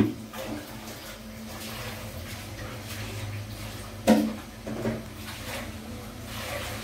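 Metal steamer pot clanking as the banana-leaf parcels are set into it: a sharp knock at the start, another about four seconds in and a lighter one just after, each ringing briefly, over a steady low hum from the heated steamer.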